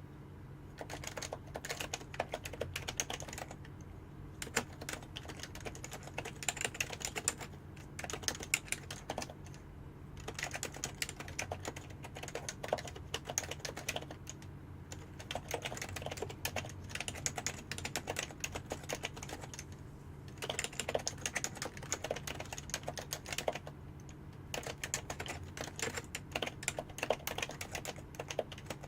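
Fast typing on a Happy Hacking Keyboard (HHKB) with Topre electrostatic capacitive switches: dense runs of keystrokes lasting several seconds, broken by brief pauses about every four to six seconds. A faint steady low hum runs underneath.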